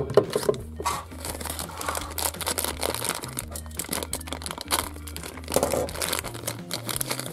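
Crinkling and rustling of a thin plastic toy wrapper as it is handled and torn open by hand, an irregular run of crackles.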